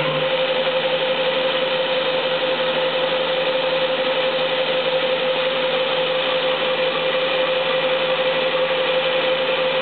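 Haas TM-1 CNC milling machine's spindle running steadily, turning a threadmill, with a constant mid-pitched whine over a steady machine hiss.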